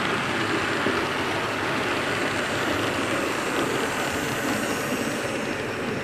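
Model diesel train running past on the layout track: a steady rumble and whirr of its wheels and motor.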